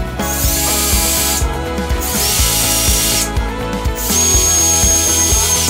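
Drill driving a centre-finding (self-centring) hinge bit in three short bursts, each with a high whine, boring pilot holes through a steel hinge's screw holes into wood. Background music plays underneath.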